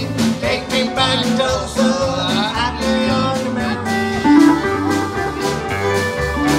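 A live band on an outdoor stage plays guitar-led music over a steady drum beat, with some gliding guitar notes.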